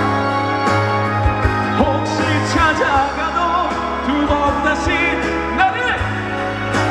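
Live band playing a pop ballad, with steady bass, regular drum hits and a sliding, wavering lead melody line over it.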